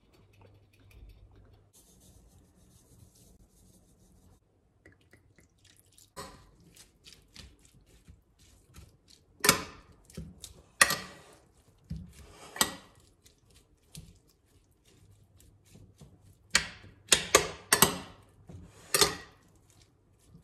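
Metal fork and spoon tossing salad in a cut-glass bowl, clinking and scraping against the glass in irregular clusters of sharp knocks. The first few seconds are quiet; the knocks start about six seconds in and are loudest in the second half.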